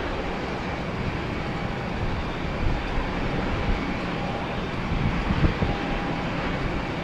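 Steady jet engine noise of a Boeing 777 rolling along the runway, a continuous rumbling rush with no sudden changes.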